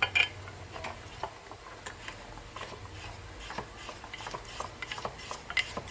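Vegetable slicing machine being turned, slicing a potato very thin: a run of irregular light clicks and scrapes, several a second.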